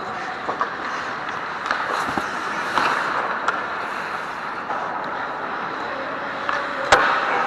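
Ice hockey game sounds on the rink: a steady scraping hiss of skates on the ice with scattered light stick and puck clicks, and one sharp crack about seven seconds in.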